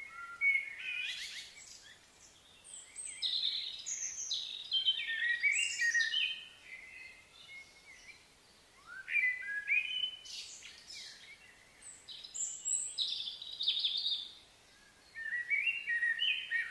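A songbird singing in five or so bursts of quick, varied whistled notes, with short pauses between phrases.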